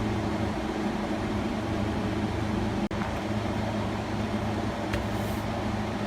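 Steady mechanical hum with a low drone, which cuts out for an instant about three seconds in.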